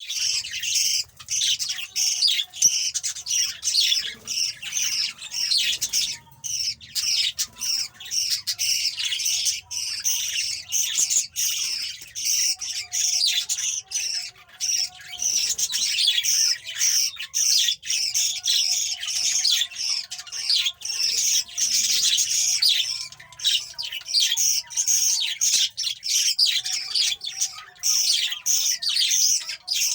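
Budgerigars and their chicks calling without pause: a dense stream of rapid, high-pitched squawks and chirps, the racket of chicks begging while they are fed.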